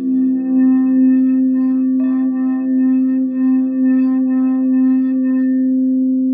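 Crystal singing bowls ringing: a steady low tone with a slow wavering pulse, and higher overtones shimmering above it. A further, higher bowl tone comes in about two seconds in.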